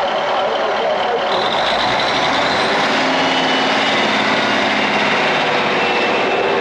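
Train passing close by over a level crossing: a steady, loud rush of engine and wheel-on-rail noise, with a higher whine joining about a second in.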